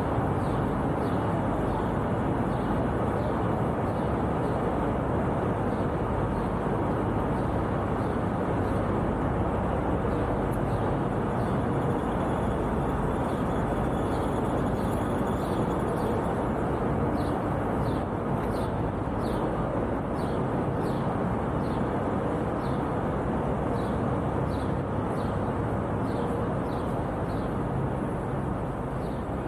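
Steady city street ambience with a constant rumble of traffic. From about ten seconds in, short high chirps or ticks repeat roughly twice a second over it.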